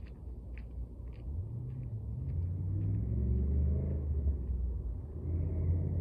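Low rumble of a motor vehicle's engine going by. It swells from about a second and a half in, peaks in the middle, eases off, then rises again near the end.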